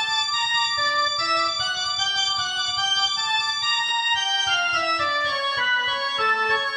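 Two-manual electronic church organ played with both hands: sustained chords over a moving bass line, with a stepwise descending passage about four to six seconds in.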